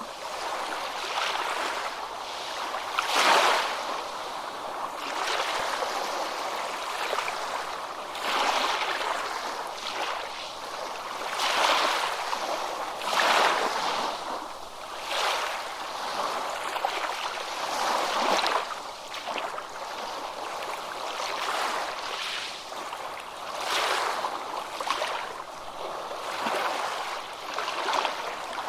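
Ocean waves breaking and washing, rising and falling in irregular surges every couple of seconds, with little deep rumble.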